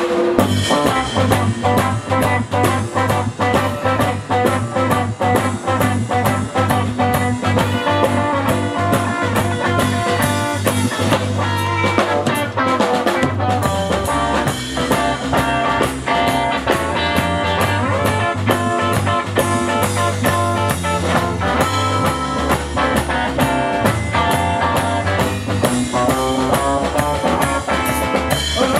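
Rock band playing live with electric guitar and drum kit, a steady driving drum beat under guitar chords and a bass line.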